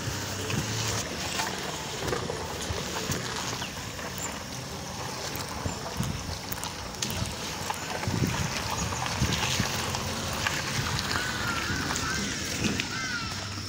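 Outdoor ambience dominated by wind buffeting a handheld microphone, with handling knocks and a low steady hum. A few short chirps come near the end.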